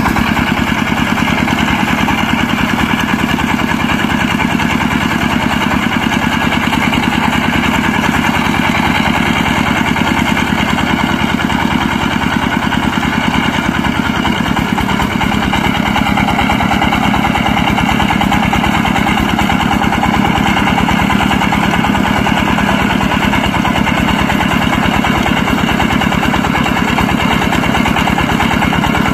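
Single-cylinder diesel engine of a công nông two-wheel tractor running steadily with an even, rapid chugging.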